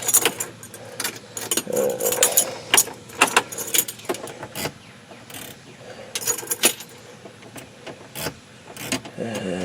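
Irregular clicks, knocks and light jingles from a 1964 Ford Thunderbird's dashboard controls and keys being worked while the windshield wiper switch is tried.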